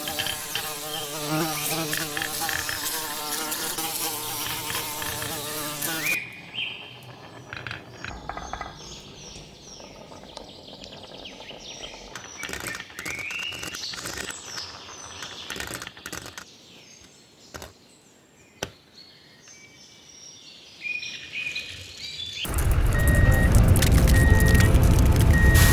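Many marbles rolling together down a plastic rain-gutter track, a dense buzzing rattle. After an abrupt change about six seconds in, it gives way to quieter scattered clicks and rolling of fewer marbles on the track, and loud music starts near the end.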